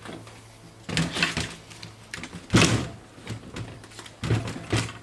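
Metal clunks and clatter as large pliers grip and turn the threaded end cap of a forklift power steering cylinder lying on a steel table. It comes in three bursts, the loudest about halfway through.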